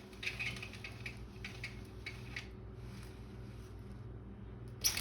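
Powered window blinds running: a steady low motor hum with light irregular squeaks and ticks over the first couple of seconds and one sharp click near the end. The squeak is the one the owner wants to cure with lubricant.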